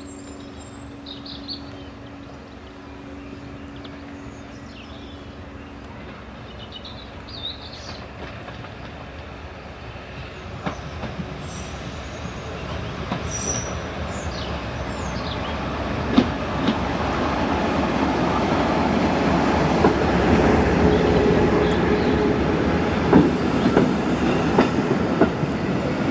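A train approaching, growing steadily louder from about ten seconds in, then running close by with its wheels clicking over the rail joints. Birds chirp over the quieter first half.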